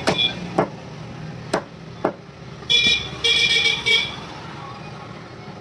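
Four sharp knocks in the first two seconds, then a high-pitched vehicle horn honking twice, a short toot followed by a longer one.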